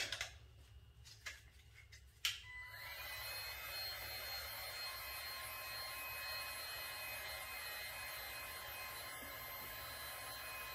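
Cordless heat gun switched on with a click about two seconds in, then its fan blowing steadily with a faint high whine. It is warming a freshly applied PTFE patch on a plastic fuel tank to set off the adhesive's bonding reaction.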